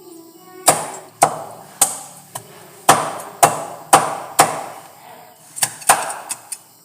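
A knife chopping through chicken: about a dozen sharp strikes, roughly two a second, each with a short ring, quickening into a rapid flurry near the end.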